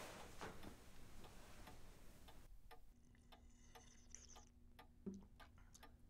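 Faint, steady ticking of a clock in a quiet room, with a soft low knock about five seconds in.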